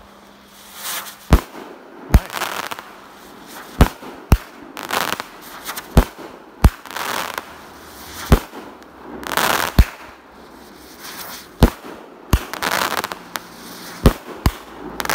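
A 16-shot, 500-gram multi-effect consumer firework cake firing: a dozen or so sharp bangs, roughly one a second and sometimes two in quick succession, with stretches of noisy crackling between them.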